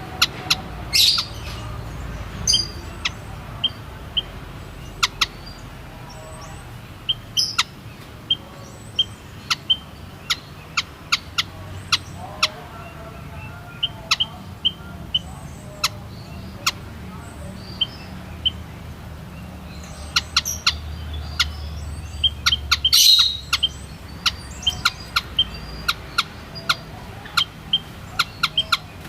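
White-headed munias (Lonchura maja) calling: a scattered run of short, sharp chip notes, with a louder flurry of calls about 23 seconds in.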